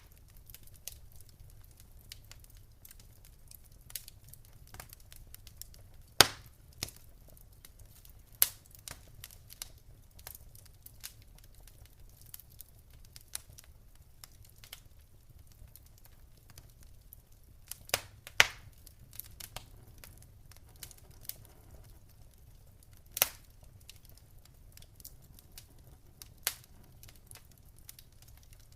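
Wood fire in a fireplace crackling: a steady scatter of small irregular snaps with a few much louder pops, two of them close together past the middle. A low steady rumble runs underneath.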